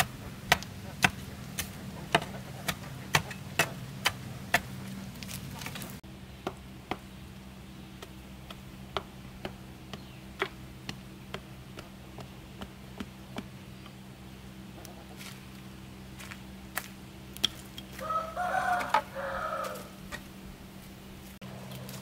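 Metal-bladed digging tool striking stony red soil again and again, about two sharp strikes a second for the first six seconds, then slower, scattered strikes. About eighteen seconds in, a rooster crows once for roughly two seconds.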